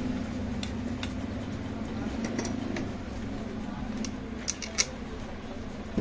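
Small metallic clicks and clinks of bolts and tools as a scooter engine's tappet cover is fitted back on, most of them about four and a half to five seconds in, over a steady low hum.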